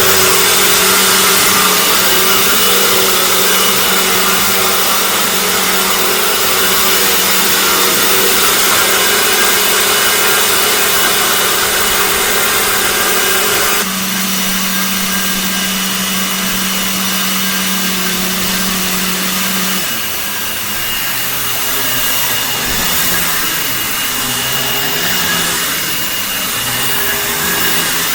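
2011 Dirt Devil Classic upright vacuum cleaner running continuously with a steady hum and hiss. The tone shifts about halfway through, and in the last several seconds the motor's pitch wavers up and down.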